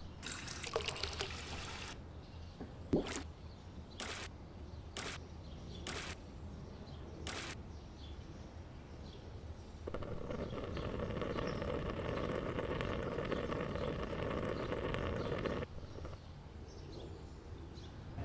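Water boiling in a pot of potatoes: a steady bubbling for about six seconds that cuts off suddenly. Before it come several sharp knocks, a second or so apart.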